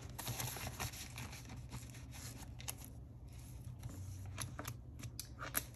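Rustling and crinkling of clear plastic binder envelopes and paper bills being handled as the pages are turned, with a few light clicks in the second half.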